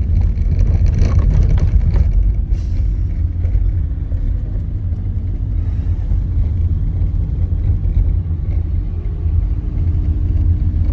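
Van driving on a snow-covered track, heard inside the cab: a loud, steady, deep rumble of engine and tyres with a faint engine drone over it, and a few knocks in the first couple of seconds.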